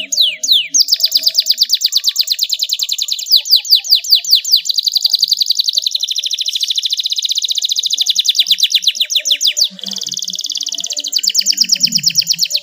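Canary singing a long rolling song: fast trills of many short repeated notes a second, changing from one trill to the next every second or two. A few quick falling notes come near the start, and a harsh, buzzy stretch comes about three quarters of the way through.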